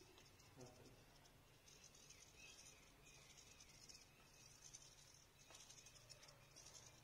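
Near silence: faint room tone with a low hum and a few brief, faint high-pitched buzzes.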